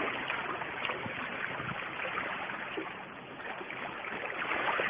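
Small sea waves washing and lapping against a rocky shore, a steady even hiss of water.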